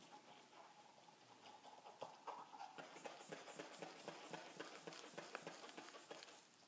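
Faint, quick clicking and rustling from a manual blood pressure cuff and its hand bulb being worked while a blood pressure is taken by stethoscope. The clicking runs about four or five a second from about two seconds in and stops shortly before the end.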